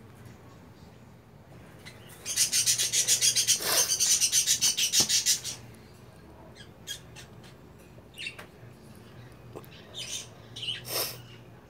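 A bird's rapid chattering call, about ten high-pitched pulses a second for about three seconds, followed by a few scattered short chirps.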